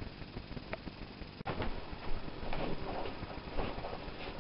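Quiet room tone with faint rustles and light taps, and one sharper click about one and a half seconds in.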